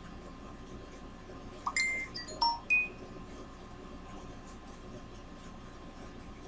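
A quick run of about five short, clear chime-like notes at different pitches, lasting about a second, starting about two seconds in, over a faint steady hum.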